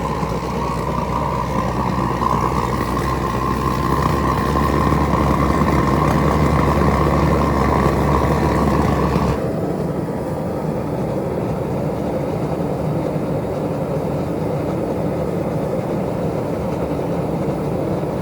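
Gas forge burner running with a steady jet-like roar and a whistling tone; about nine seconds in the sound changes suddenly, the whistle and deep rumble dropping away while a steady rush carries on. The forge is heating up.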